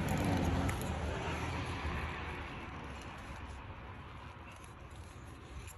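Steady vehicle noise, like a car going past, that fades gradually over the few seconds.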